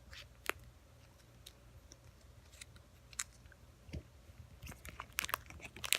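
Plastic toy packaging being handled: scattered small clicks and crinkles, growing denser in the last second as unwrapping starts.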